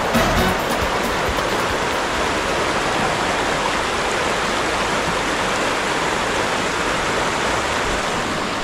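Running water: a steady, even rush.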